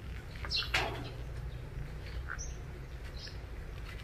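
Birds chirping: a few short, high calls scattered through, the sharpest a little under a second in, over a steady low rumble.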